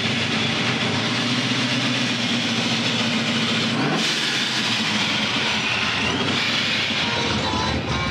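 Supercharged 434 cubic-inch small-block V8 with a ProCharger F-1R running at idle, a loud steady run with a low hum and a lot of hiss. The sound shifts abruptly about four seconds in.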